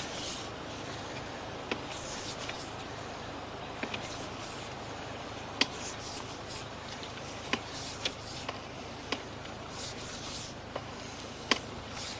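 A sewer inspection camera's push cable being pulled back through the line: scattered sharp clicks, about one every one to two seconds, and a few brief hissing rubs over a steady low background noise.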